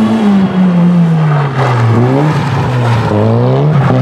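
Rally car engine under hard driving. The revs fall for about two seconds, pick up briefly, dip once more, then climb again about three seconds in as the car turns and accelerates through the slalom.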